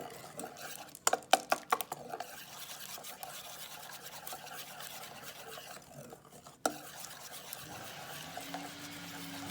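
Stirring a thick chickpea-flour (besan) batter in a bowl. The utensil knocks against the bowl in a quick run of clicks about a second in, and once more near seven seconds. A low steady hum comes in near the end.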